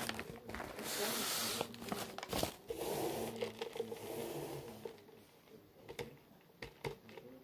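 Paper takeout bag rustling and crinkling as it is handled, with scattered sharp clicks; the rustling dies down after about five seconds.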